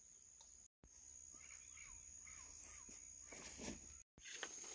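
Near silence: faint outdoor ambience with a steady high insect buzz and a few soft bird chirps around the middle.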